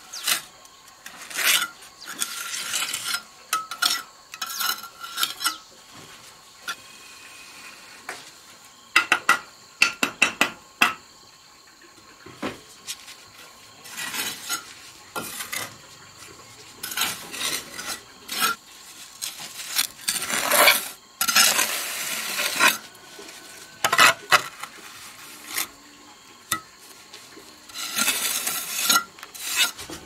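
Steel bricklaying trowel scraping and spreading cement mortar on bricks, in irregular bursts of gritty scraping broken by sharp taps of the blade against brick.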